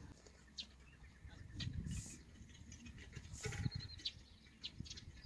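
Faint, scattered short bird chirps over low rustling and soft thumps.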